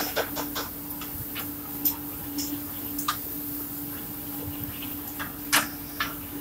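Belt conveyor carrying cement bags, running with a steady hum. Irregular clicks and knocks come through it: a quick run of clicks at the start and a few single sharp knocks later, the loudest about five and a half seconds in.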